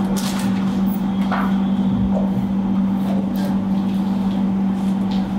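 A steady low machine hum, with a few light rustles and clicks from a paper piping cone being opened and handled.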